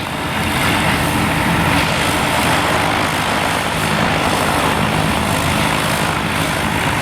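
Propeller airplane's piston engine running steadily, a loud even drone with a broad hiss of propeller and air noise over it.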